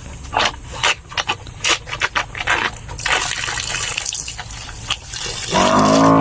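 Pigs sucking and slurping water in quick wet sips. About three seconds in comes a steady gush of running water for a couple of seconds, then a short pitched cry near the end.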